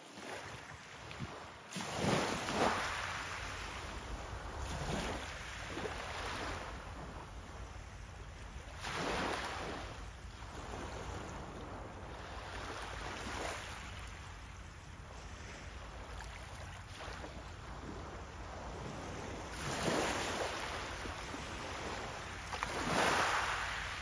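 Small waves lapping and washing up a pebble beach, with a steady hiss of moving water that swells about five times, a few seconds apart, as each wave breaks on the stones and draws back.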